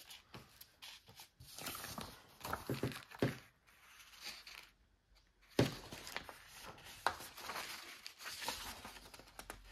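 Paper rustling with light clicks and knocks as photo album pages and loose photographs are handled, with one sharper knock about halfway through.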